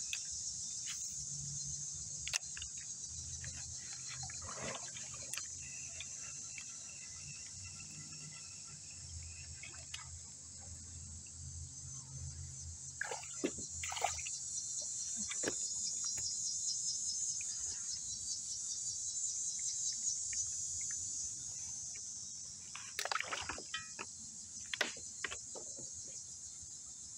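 Steady high-pitched chorus of insects, with a few brief splashes and clicks of water against the kayak here and there and a faint low hum through the first half.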